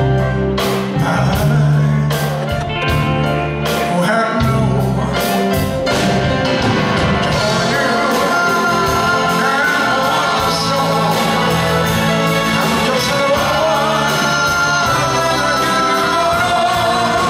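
Live vocal-group performance: a male lead singer with backing voices over a band of drums and electric guitar. Drum hits stand out in the first few seconds, then long held sung notes carry over the band.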